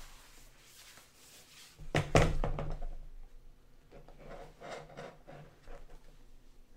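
Packaging being handled while a laptop is unboxed. Two sharp knocks come about two seconds in as the box, sleeve and laptop knock together, followed by light rubbing and sliding of the packaging.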